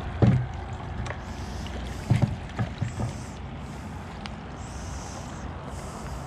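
Steady low rumble of wind on the camera microphone, with a few short knocks from handling gear: one about a quarter second in and a few more around two to three seconds in.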